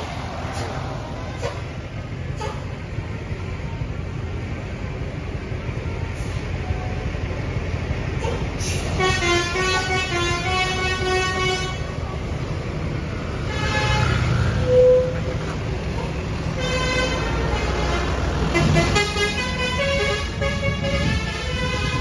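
Tour bus running past with a Basuri 'telolet' musical air horn playing tunes of several notes that step up and down, in bursts starting about a third of the way in, again around the middle, and again through the last few seconds. The buses' diesel engines rumble low underneath.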